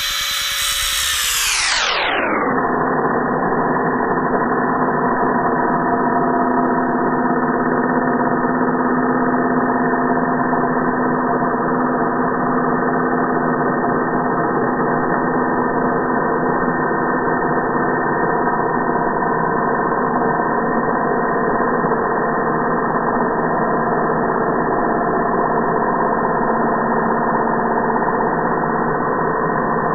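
Angle grinder sound slowed down for slow-motion playback. Its pitch drops steeply over the first two seconds, then holds as a low, steady drone of several tones.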